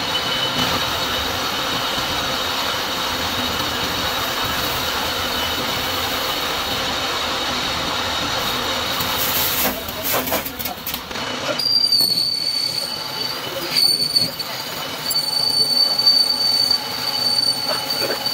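Metal lathe cutting a steel gear blank, the tool taking a continuous cut with a steady hiss. A little past halfway the sound breaks up briefly, then a sharp high whine comes in, wavering in loudness as the cut goes on.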